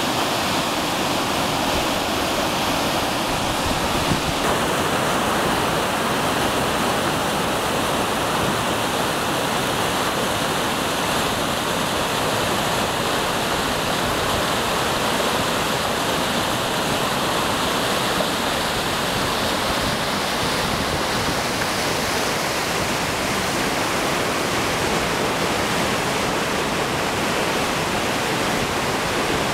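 Whitewater rapids in an artificial slalom channel: a steady, loud rush of churning water.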